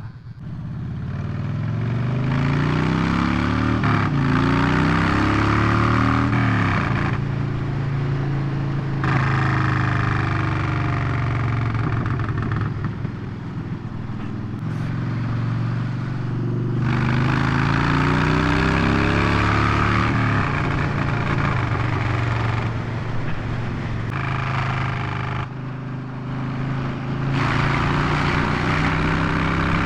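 Motorcycle engine under way, its note climbing and dropping as it pulls through the gears, with wind rushing over the microphone that comes and goes.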